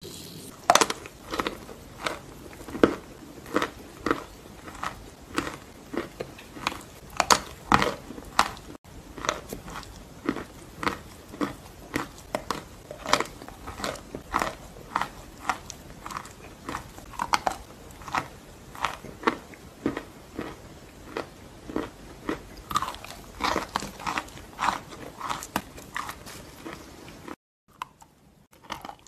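Close-miked bites into blocks of pressed chalk (Petropavlovka, then Chestor), each bite a sharp crunch, about one a second, with chewing in between. A brief break near the end, after which the crunching resumes.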